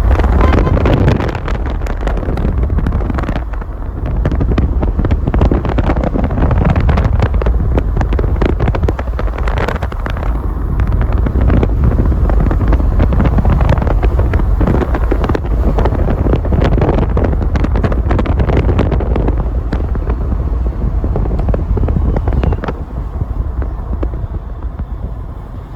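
Vehicle riding along a road, its low rumble mixed with heavy wind buffeting on the microphone and frequent short knocks and rattles; it quietens somewhat near the end.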